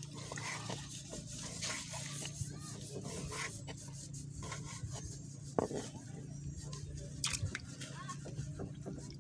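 Kitchen knife slicing soft seafood flesh on a wooden board: a string of light taps as the blade meets the wood, with a louder knock about five and a half seconds in.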